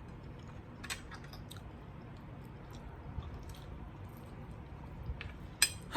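Close-miked chewing of adobo chicken: soft wet mouth clicks and squishes, with a louder click about a second in and a sharper cluster of clicks near the end.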